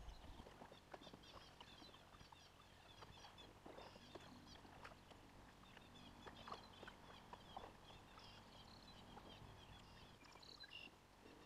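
Near-quiet outdoor ambience with faint, high-pitched chirping calls all through it, and a few soft knocks.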